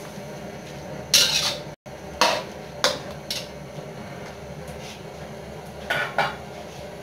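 A cooking utensil clanking against a pan several times as squid that has released a lot of water is stirred: a longer clatter a little after the first second, single knocks around two and three seconds in, and a quick pair near the end, over a steady faint background.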